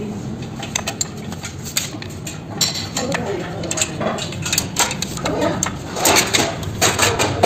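A metal T-handle wrench clinks and scrapes against the exhaust header nuts at a motorcycle's cylinder head as the silencer is unbolted. The sound is a run of short, irregular metallic clicks.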